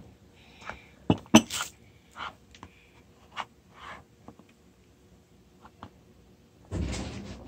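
Scattered small clicks and taps of a toddler eating from a small glass bowl with a spoon and his fingers, the sharpest knocks a little over a second in, followed by a short breathy burst. Near the end comes a longer stretch of soft rustling noise.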